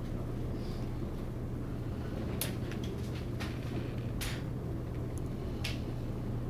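Steady low room hum with a few short clicks or rustles scattered through it; no snore stands out.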